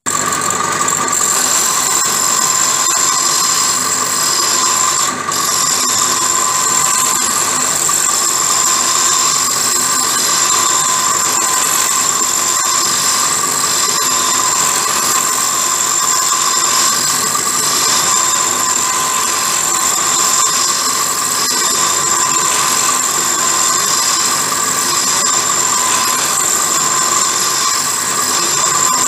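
Pillar drill running a small cutter against the dogs of a gearbox gear to back-cut them, a steady high-pitched whine.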